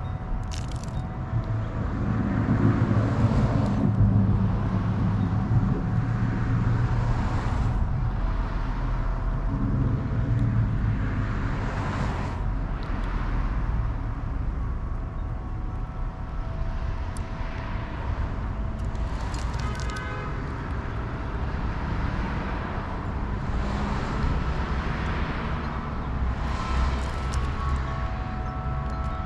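Outdoor background of road traffic: passing vehicles swell and fade every few seconds over a steady low rumble and faint hum.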